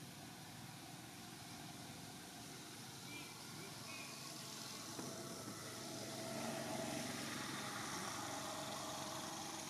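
A motor vehicle's engine hums steadily over outdoor background noise, growing louder from about halfway through.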